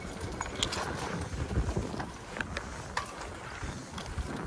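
Electric mountain bike riding fast down a dirt trail: a rough, continuous tyre rumble over the bumpy ground and wind buffeting the microphone, with several short sharp rattles as the bike jolts over bumps.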